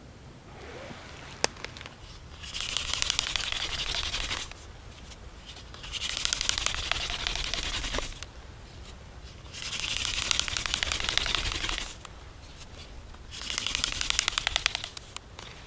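Hand-drill friction fire: a mullein-stalk spindle spun between the palms grinding in the notch of a wooden hearth board, a dry, gritty scraping with fine rapid ticks. It comes in four runs of about two seconds each, with short pauses as the hands return to the top of the spindle, and a single sharp click about a second and a half in.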